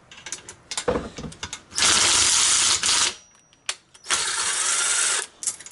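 Power wrench running in two bursts of about a second each, with small metallic clicks before and between them. It is loosening the cylinder head bolts on a Tillotson 212cc engine.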